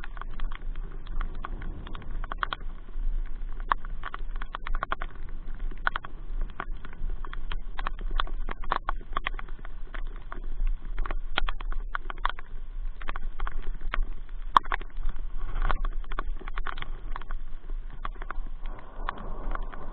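Rain falling, with many irregular close drops tapping sharply on a hard surface over a steady low rumble.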